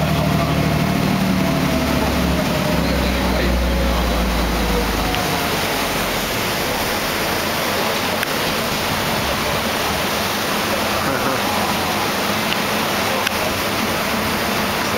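A boat's engine drones low under the steady rushing of its wake water; the engine note sinks a little and fades out about five seconds in, leaving the rushing water alone.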